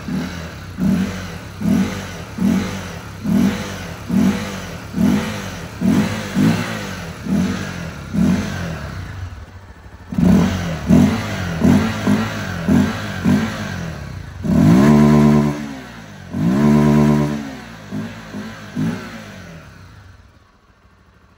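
Honda XR 300L Tornado's single-cylinder engine, running with the airbox cover removed, revved in quick throttle blips a little more than one a second. Midway come two longer revs of about a second and a half each, then a few small blips before the engine drops back near the end.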